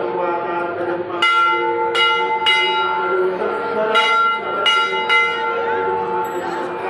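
Temple bells struck again and again, about six strikes at uneven spacing, each ringing on with a clear metallic tone that overlaps the next.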